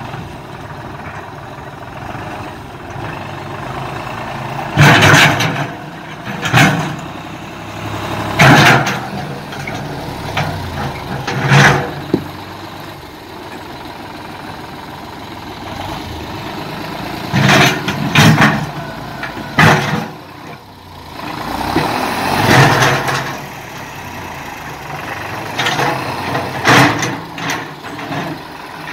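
New Holland tractor's diesel engine running steadily as its front-end loader bucket pushes into large rocks, with about ten short, loud bursts of scraping and knocking from the bucket against stone.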